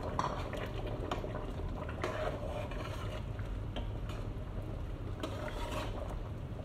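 A metal ladle stirring a pot of stew, with repeated scrapes and clicks against the pot.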